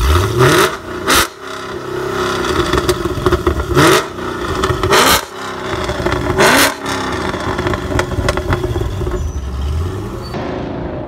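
Chevrolet SS's V8 revved through its exhaust in several short, sharp blips, each a quick rise and fall in pitch. It then settles to a steady idle for the last few seconds.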